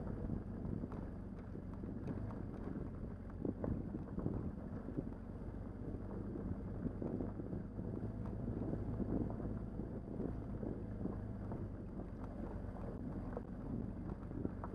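Motorcycle engine running steadily while the bike is ridden along a rough dirt track, with wind on the microphone. Scattered knocks and rattles run throughout.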